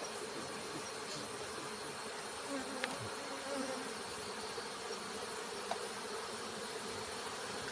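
Honeybees buzzing in a steady hum, with the buzz of single bees rising and falling close by, and a couple of faint clicks.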